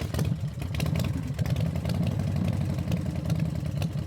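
Royal Enfield Thunderbird 350's single-cylinder engine idling through an aftermarket Wild Boar silencer: a steady, even, low-pitched thump.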